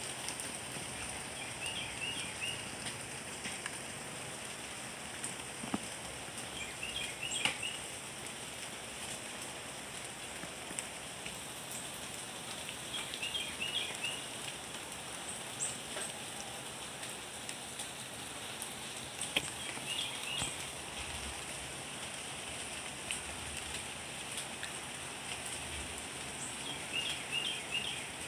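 Steady rain falling, with scattered single drops ticking louder. A short cluster of high chirping notes repeats about every six seconds.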